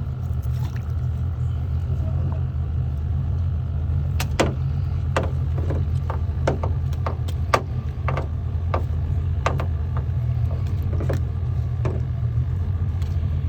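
Boat motor idling with a steady low drone, with a run of sharp knocks and clatters in the middle stretch.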